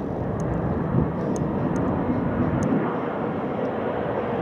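Boeing 737-800 on final approach with its CFM56-7B turbofan engines making a steady, rushing jet noise. The noise grows slightly louder as the aircraft nears.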